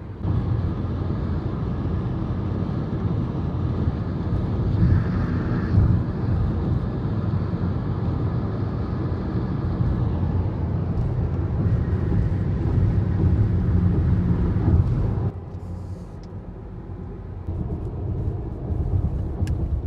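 Car being driven, a steady rumble of road and engine noise that drops suddenly to a quieter level about fifteen seconds in.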